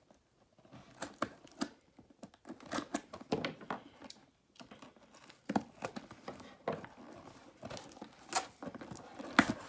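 Cardboard shipping box being opened by hand: tape and packaging tearing and crinkling in irregular rustles and snaps, the loudest snap near the end.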